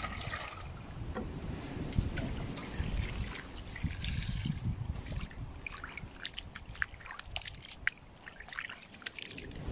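Water poured from a bottle into a small pot, then poured from the pot over raw chicken pieces in a wok, followed by hands swishing and squeezing the meat in the water with small splashes. This is frozen chicken being rinsed before blanching.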